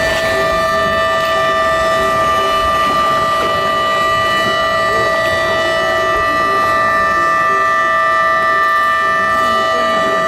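A launch salute of horns or sirens: a chord of several high tones held without a break, sounding over the wash of churning water from a ship just launched down the slipway.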